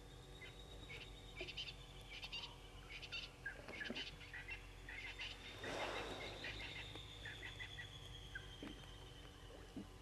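Night chorus of frogs and insects: a steady high trill under clusters of short, repeated chirping clicks. About six seconds in comes a louder brief tearing rustle as the hippo crops grass.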